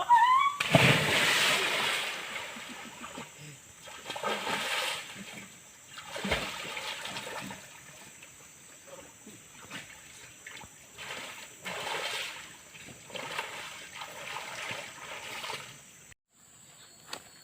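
Water splashing and sloshing in several irregular bursts, the loudest about a second in.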